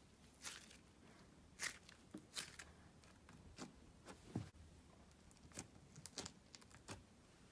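Faint, irregular crackles and soft squishes from hands kneading and pressing white slime mixed with green model-foam beads.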